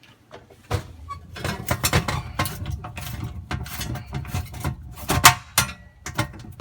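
Nut driver turning off the small nuts that hold an oven bake element to the back wall: a busy run of metal clicks and scrapes that starts just under a second in.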